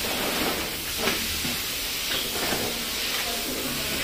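Steady hiss of background noise, with a few faint brief sounds about one and two seconds in.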